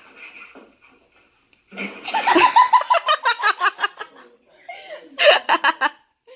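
A person laughing hard in rapid, high-pitched bursts of about five a second, in two bouts, the second starting near the end.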